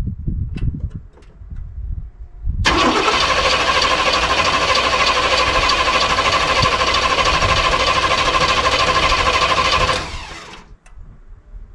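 Old GMC pickup's engine being cranked by its starter for about seven seconds without a pause, a loud steady whirring with a fast even pulse, then the starter is let go and spins down.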